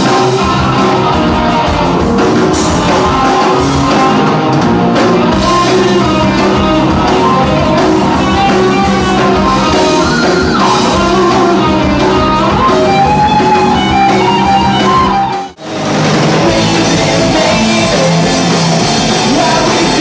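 Rock music with electric guitar, drums and singing; it cuts out for a moment about three-quarters of the way through, then carries on.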